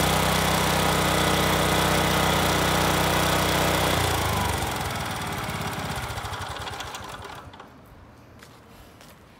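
Yanmar Chibipochi TB3 3 hp mini tiller engine running steadily, then shut off about four seconds in and dying away over the next few seconds. Faint footsteps near the end.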